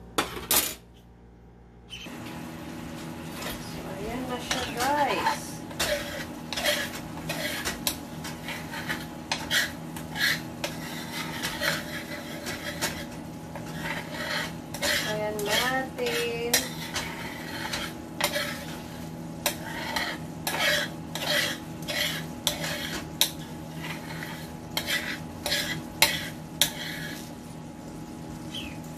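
A spoon scraping and clicking against a non-stick frying pan as coconut milk is stirred, the milk sizzling and bubbling as it is cooked down into a topping. The scrapes come in quick, irregular strokes throughout, after a short quiet moment at the start.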